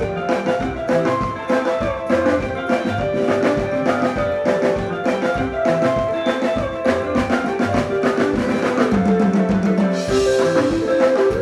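Live soukous band playing an instrumental stretch: melodic lines over a fast, steady drum-kit beat, with no singing.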